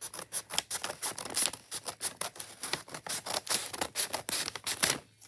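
Scissors cutting open a plastic blind-bag package: a dense, irregular run of sharp snips and crinkling crackles that stops just before the end.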